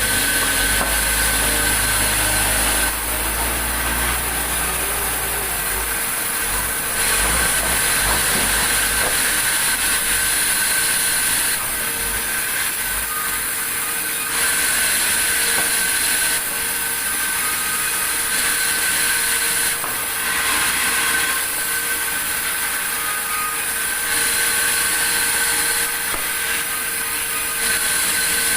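Sawmill saw cutting through a log: a loud, steady, high-pitched whine with a hiss, its level shifting every few seconds. A low rumble under it fades out about six seconds in.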